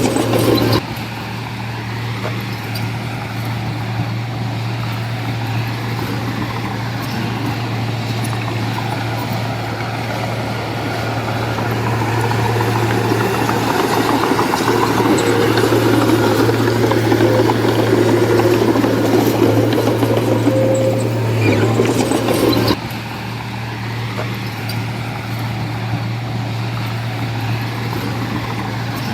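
Heavy-equipment diesel engine running steadily with a constant low hum. Heavier working noise builds from about twelve seconds in and drops off suddenly about 23 seconds in.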